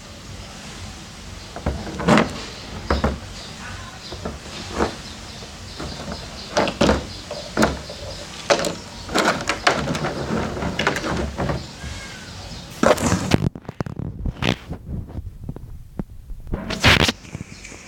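Irregular knocks and clattering, a dozen or so sharp hits at uneven intervals, with a short stretch of near quiet about three quarters of the way through.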